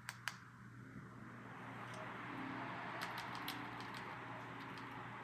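Two light clicks, then the whoosh of computer cooling fans spinning up and settling into a steady hiss as a freshly built PC powers on for its first bench test, with a few faint ticks about three seconds in.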